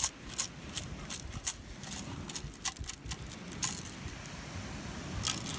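Metal-mesh beach sand scoop being shaken to sift sand. Shell grit and pebbles rattle and click against the wire in quick, irregular clicks for about four seconds, then pause, with a few more clicks near the end.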